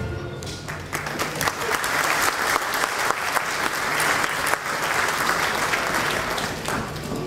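A crowd applauding, building up about a second in and tapering off near the end.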